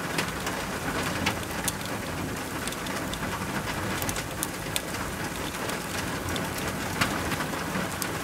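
Steady rain falling on and around the small wooden camper, heard from inside, with many single drops ticking through the hiss.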